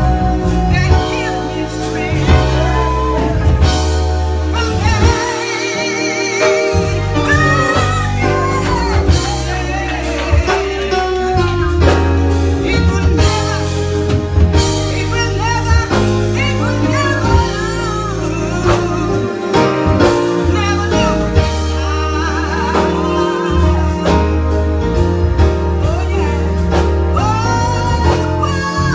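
Gospel music with singing over a band with bass and drums.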